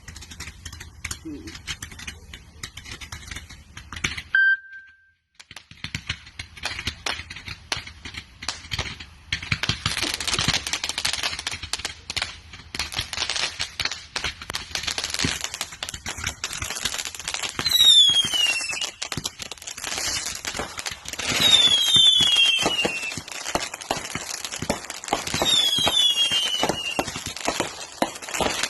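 A 416-shot consumer firework cake firing a rapid string of shots and crackles. Several falling whistles come in over the shots in the second half. A short beep sounds about four seconds in.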